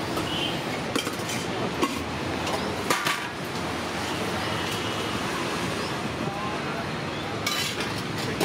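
Steel serving spoons and lids clinking against stainless steel food pots, a few separate clinks and a short cluster near the end, over a steady hum of street traffic.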